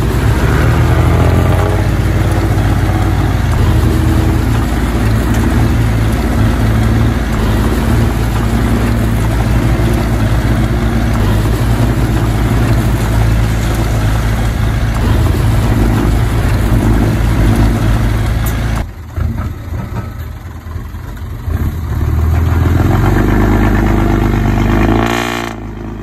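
Bulldozer's diesel engine running hard, a loud, steady low engine note. It changes abruptly about 19 seconds in, dropping quieter for a few seconds before the engine is loud again, with another sudden change near the end.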